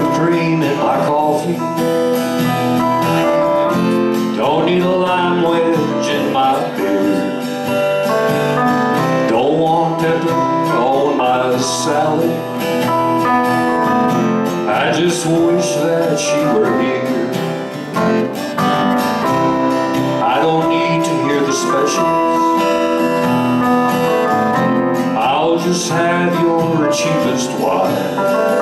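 Small live band playing a song, guitars to the fore with a strummed acoustic guitar and several other instruments together.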